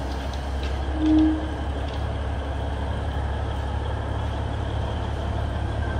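Alishan Forest Railway diesel locomotive running steadily as its cargo train rolls slowly in, a continuous low engine drone, with one brief tone about a second in.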